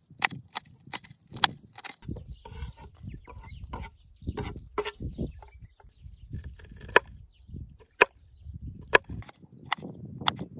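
A kitchen knife chopping vegetables on a wooden cutting board: sharp knocks of the blade hitting the board. The strokes come quickly and evenly at first, then after about two seconds become slower and irregular as small pickled cucumbers are cut.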